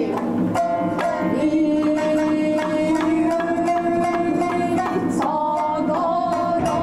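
Tokiwazu kabuki music: a singer holds one long drawn-out note over plucked shamisen notes, then the vocal line moves on near the end.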